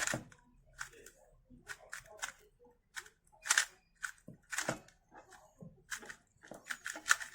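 A YJ Yupo V2 M magnetic 2x2 speed cube being turned fast during a solve: quick, irregular plastic clicks and clacks as its layers snap round. The turning is still bumpy because the cube is not yet broken in.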